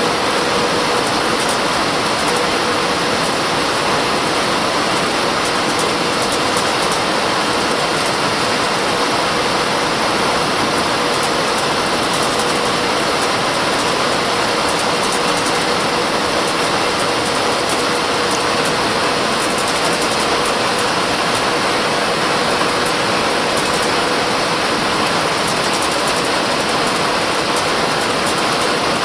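Steady cabin noise of an Airbus A319 airliner: an even rush of air and engine noise with a thin steady tone running through it.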